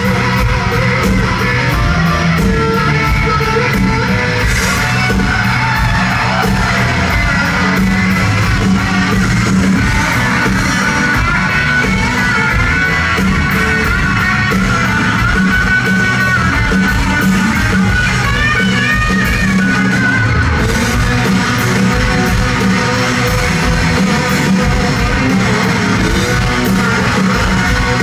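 Country-rock band playing live and loud in a large hall: electric guitars over drums with a steady beat.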